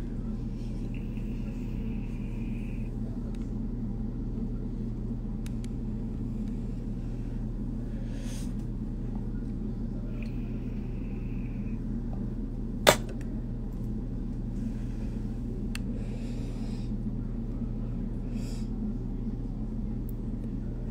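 Pink vape pen drawn on twice, each draw a faint airy whistle lasting about two seconds, near the start and again about ten seconds in, with a few soft breathy puffs later, over a steady low room hum. A single sharp click about 13 seconds in is the loudest sound.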